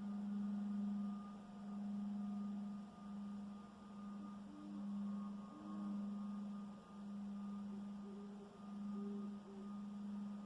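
A steady low hum, heard as a strange sound in the night sky, swelling and fading every second or two. Short higher tones join it a few times in the second half.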